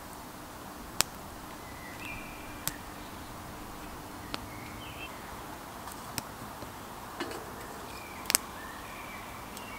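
Small wood fire in a hobo stove crackling, with a few sharp snaps, the loudest about a second in. Short high bird chirps come now and then over a quiet forest background.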